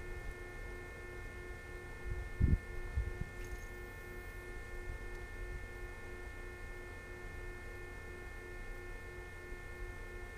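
Steady electrical hum made of several thin tones, one of them pulsing evenly, over a low rumble. A brief low thump comes about two and a half seconds in.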